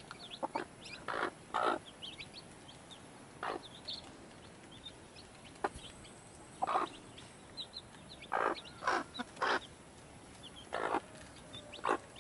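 Mother hen clucking in short, irregular calls, about ten in all, while her newly hatched chicks peep faintly and high-pitched throughout.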